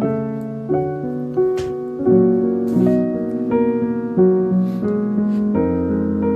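Background piano music: a gentle melody of sustained notes over low chords.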